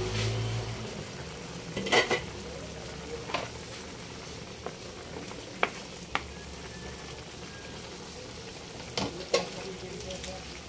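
Chicken and carrots simmering in broth in a metal pan with a faint steady sizzle, while a metal ladle stirs them, clinking and scraping against the pan several times.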